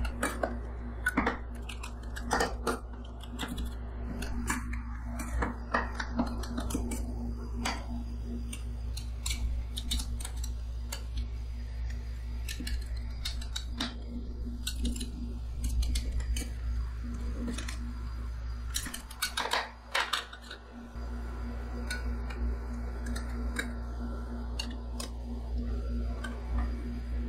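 Steel spatulas chopping and scraping ice cream base on the frozen stainless-steel plate of a rolled-ice-cream machine: irregular sharp clicks and taps of metal on metal, with softer scraping. Under it runs a steady low hum, likely the machine's refrigeration unit, which briefly drops out a little past the middle.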